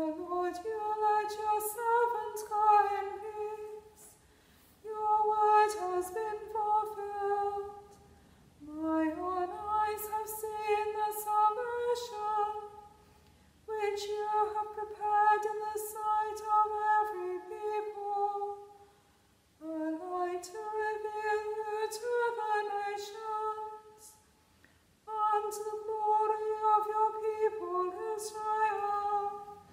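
A woman's unaccompanied solo voice chanting in six phrases, each held mostly on one level note with small steps up and down, with short breaths between them and a little church reverberation.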